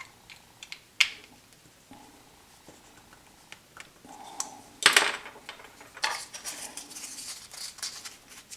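Workbench handling of wooden blocks and hand tools: a few sharp clicks, a loud knock about five seconds in, then several seconds of scratchy scraping and rustling.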